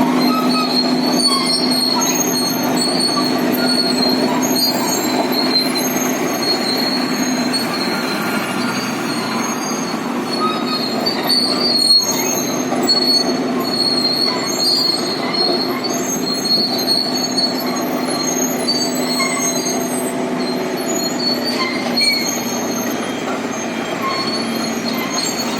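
Caterpillar D8L track dozer working: the diesel engine runs steadily under high squealing and clanking from its steel tracks.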